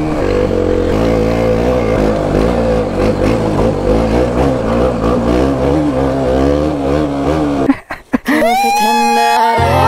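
Motorcycle engine running at low trail speed, its pitch rising and falling with the throttle. About eight seconds in it cuts out and music begins.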